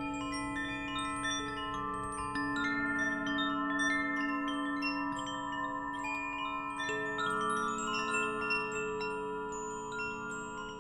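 Wind chimes tinkling: many pitched tones struck at irregular moments, overlapping, each ringing on for a few seconds.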